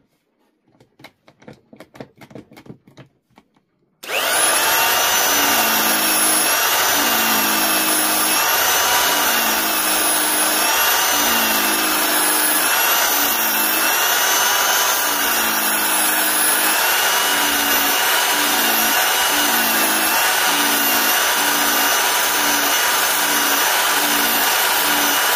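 Evolution 400 W power file (narrow-belt file sander) switched on about four seconds in, running loudly with a motor whine that wavers in pitch as it sands a piece of oak. A lower grinding comes and goes in repeated strokes that get shorter and quicker in the second half. Faint handling knocks come before it starts.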